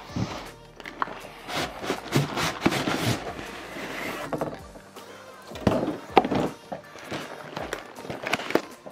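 Cardboard scraping, rubbing and knocking as a tightly jammed inner carton is worked out of a large outer cardboard box, with a few sharp knocks about two thirds of the way through.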